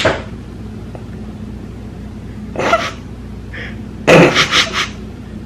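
Stifled, breathy laughter in short snorting bursts: a brief one midway and a longer, louder pulsing one about four seconds in.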